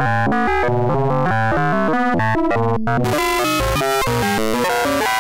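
Max/MSP wavetable synthesizer playing a fast random pitch sequence read from a Jitter noise matrix: short buzzy notes jumping up and down several times a second. About three seconds in the tone turns brighter and harsher as the wavetable shape changes.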